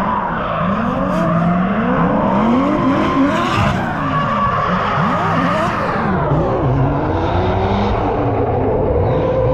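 Two drift cars sliding in tandem, their engines revving up and down in repeated swings, with tyre squeal.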